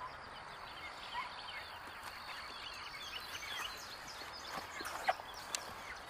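Birds calling outdoors: many short, scattered chirps throughout, over a steady background hiss.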